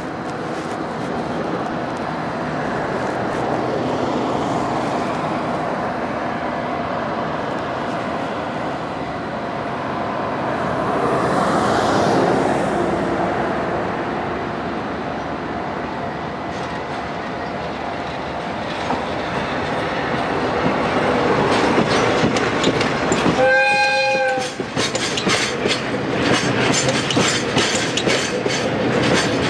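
KD55 diesel locomotive running steadily as it draws near hauling a train of tank cars, its engine growing louder as it passes. Near the end it gives one horn blast of about a second, then the tank cars' wheels clatter rhythmically over the rail joints as they roll past.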